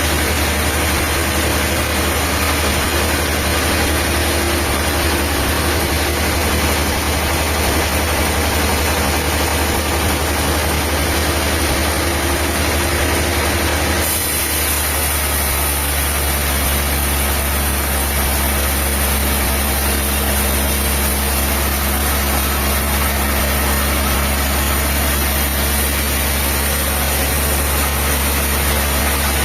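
A diesel engine running steadily with a deep, constant hum. About fourteen seconds in, its sound changes suddenly and a high hiss comes in.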